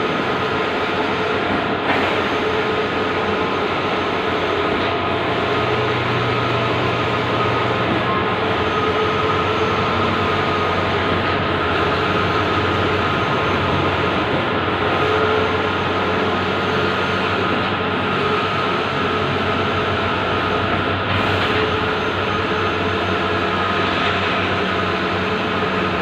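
Bluewin outdoor large-format digital printer running steadily, a continuous mechanical hum and hiss with a few constant tones.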